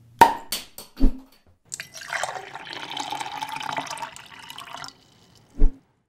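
A drink poured into a glass for about three seconds, after a few sharp clicks and a knock. A single thud comes near the end.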